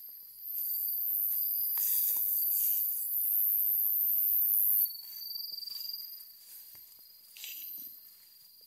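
A loud, very high insect buzz that starts about half a second in and stops abruptly after about four seconds, over a thin steady high tone. Footsteps swish through tall grass.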